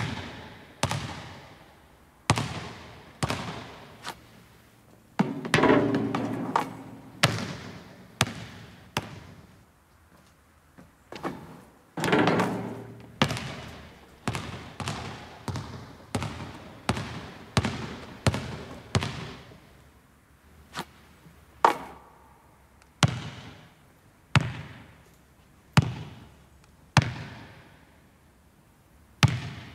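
A basketball bouncing on a wooden gym floor, about one bounce a second, each impact echoing in the large hall. Twice, about six and twelve seconds in, there is a longer, louder clattering impact.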